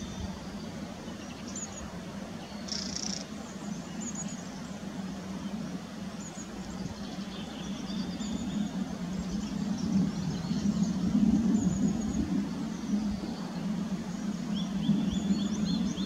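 Small woodland birds calling and singing, short high chirps and quick sweeps scattered throughout, over a steady low hum that grows louder in the second half.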